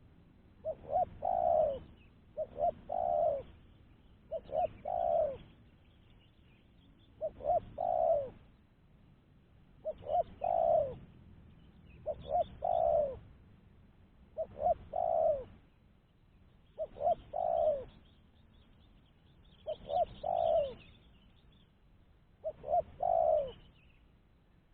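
Spotted dove cooing its repeated song: each phrase is two or three short coos followed by a longer falling coo, about ten phrases repeating every two to three seconds.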